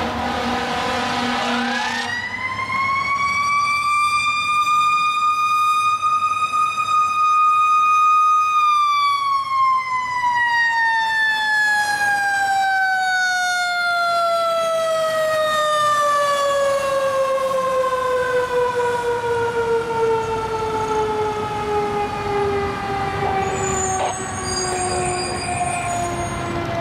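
Fire engine siren winding up over about two seconds, holding one steady pitch for several seconds, then winding slowly down in a long falling wail that is still sounding at the end.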